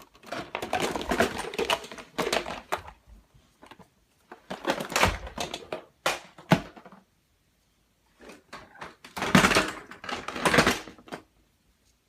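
Toys clicking and clattering as they are jostled, in three bouts of rapid rattling a few seconds each, with short gaps between.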